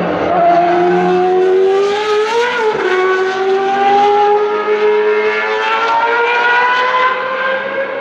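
Open-wheel single-seater race car's engine at high revs, pitch rising as it accelerates out of a corner. It shifts up once about two and a half seconds in, then the pitch climbs steadily as the car pulls away.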